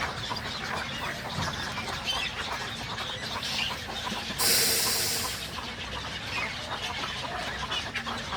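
Nesting colony of egrets calling, many short calls overlapping continuously. A brief rush of hiss-like noise comes about four and a half seconds in.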